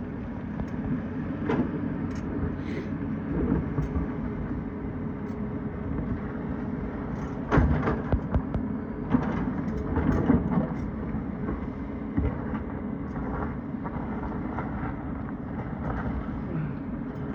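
Tata Hitachi excavator's diesel engine running steadily under load, with irregular knocks and clatters of rock against the bucket; the loudest come about seven and a half seconds in and again around ten seconds.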